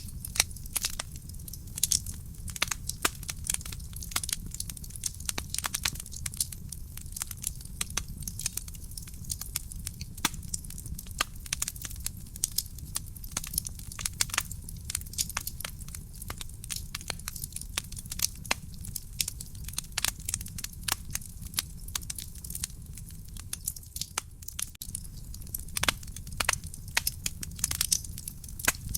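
Wood fire crackling in a fireplace: dense, irregular pops and snaps of burning logs over a steady low rumble of the flames.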